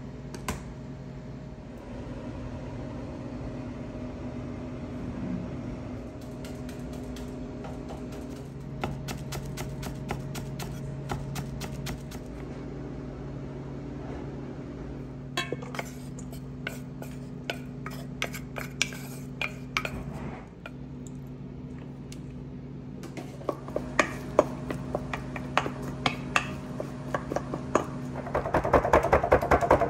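Kitchen work: dishes and utensils clinking and tapping over a steady hum, with a run of fast, louder tapping near the end.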